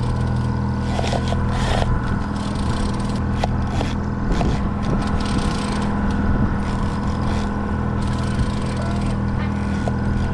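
Boat engine running steadily at trolling speed, a constant low hum, with scattered clicks and scrapes from handling on board.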